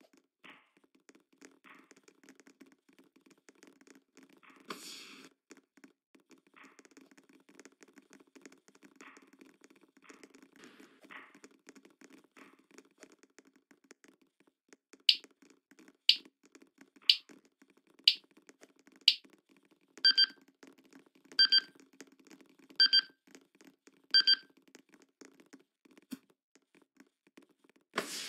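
Electronic beeper sounding: five short high beeps about a second apart, then a few lower, fuller beeps spaced a little wider, over a faint background murmur. A short dull thump comes about five seconds in, and a loud burst of noise at the very end.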